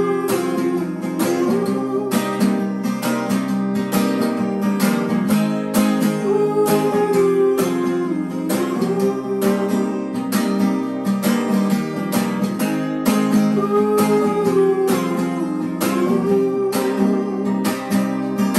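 Two acoustic guitars playing together: chords strummed and picked in an even rhythm, with a melody line over them.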